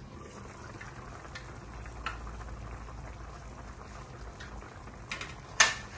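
Pot of Khmer beef sour soup simmering on the stove, a steady low bubbling, with a few light clicks and a sharp knock near the end.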